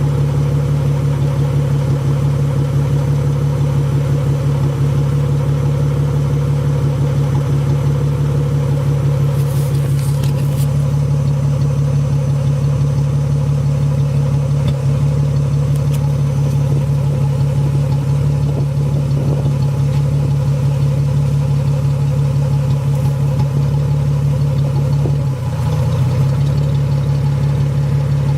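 The 4.0-litre V6 of a 2005 Ford Mustang idling steadily. It has the rough idle its owner is chasing, which comes with popping when the air conditioning is off. There are a few sharp ticks about ten seconds in, and the engine sound briefly changes and dips near the end.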